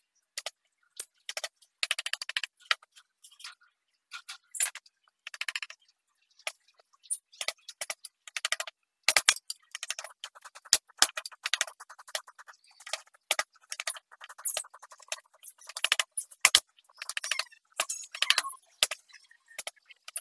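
Hand-held carving chisel paring and scraping wood in short, repeated strokes, each a dry rasping scrape, with a few light clicks between them.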